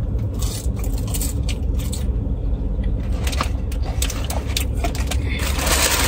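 Scrapes and clicks of takeout food containers being handled over the low, steady rumble of a car's interior, with a louder rustling starting about five seconds in.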